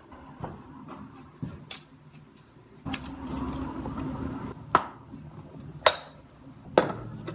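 A knife working at the cap and seal of a plastic vinegar bottle, breaking into it: scattered sharp clicks and knocks, with about two seconds of scraping about three seconds in.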